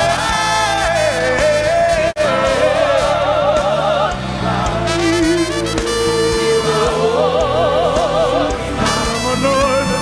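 Live gospel worship music: voices hold and bend long wordless notes with wide vibrato over a steady band. The sound drops out for an instant about two seconds in.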